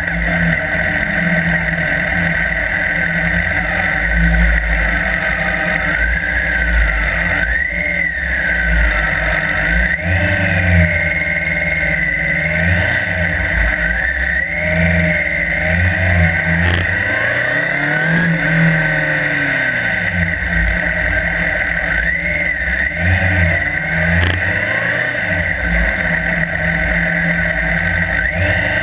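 Police motorcycle engine revving up and down repeatedly, its pitch rising and falling every few seconds as the bike is worked through a qualification course.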